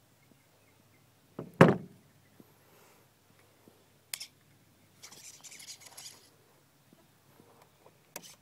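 Handling noises on a nitro RC truck, with no engine running: one loud thump about a second and a half in, sharp clicks a few times, and about a second of rustling hiss past the middle.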